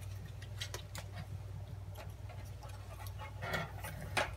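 Scattered light clicks and taps from an electronic oven control board and its wiring harness being handled and set back into the range's control panel, with a brief rustle about three and a half seconds in. A steady low hum runs underneath.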